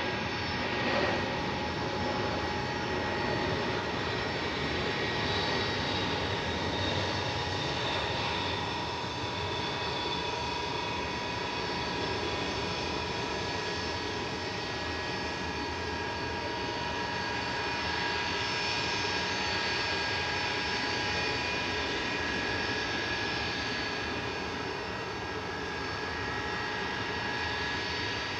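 Boeing 747-400's four Rolls-Royce RB211 turbofans running during a landing: a steady jet rumble with several high whining tones held throughout.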